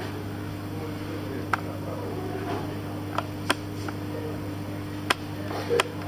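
Steady low electrical or ventilation hum, with several short sharp clicks scattered through it.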